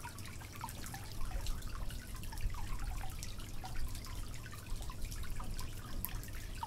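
Small water sounds at close range: lapping and dripping, made of many quick little plinks over a steady low rumble.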